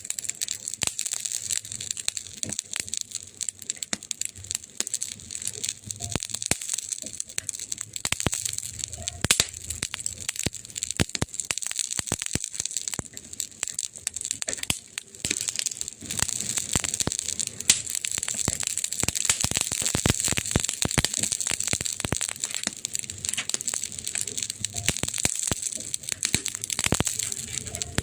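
Burning wood fire crackling steadily: a dense run of small pops and snaps over a soft hiss, with a few louder cracks.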